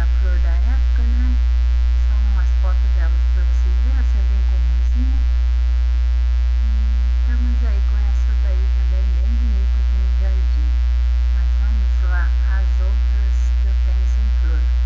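Loud, steady low electrical hum with a stack of steady overtones, unchanging throughout.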